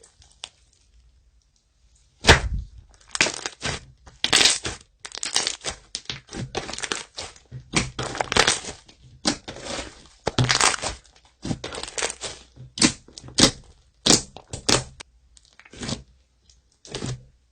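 Slime being squeezed and poked by hand, giving sharp cracks and clicks in quick, irregular runs. The sounds start about two seconds in, with short pauses throughout.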